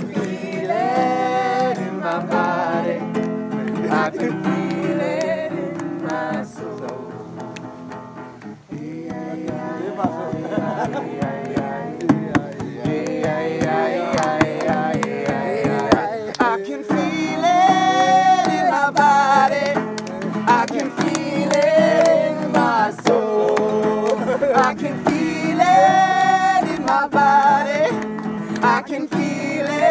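Acoustic guitar strummed with a voice singing a melody over it, plus a few sharp hand claps partway through.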